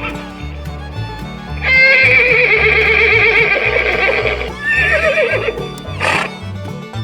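Horse whinnying: a long, loud, quavering neigh starting about two seconds in, a shorter one right after it, and a brief burst of breath near the end. Background music with a repeating bass line runs underneath.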